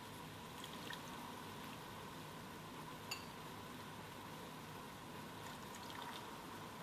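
Sugar syrup boiling gently in a saucepan, a faint steady bubbling hiss, with one light click about three seconds in.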